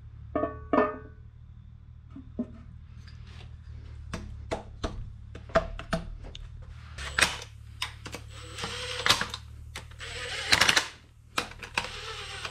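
Scattered metallic clicks and knocks as the oil sump is fitted to the 2JZ engine block and its bolts are started. Near the end comes a few seconds of fast, dense rattling tool noise as the sump bolts are run in.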